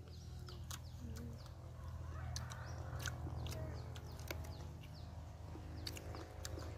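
Scattered short bird chirps, each a quick downward sweep, over a steady low hum.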